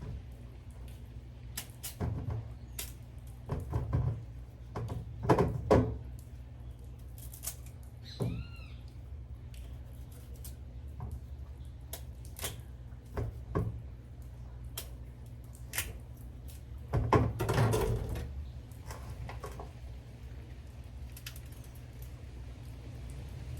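Knife work on cassava at a kitchen counter: irregular knocks and clicks of the blade and pieces against the cutting board, loudest in two clusters, over a steady low hum. A brief squeak that rises and falls about eight seconds in.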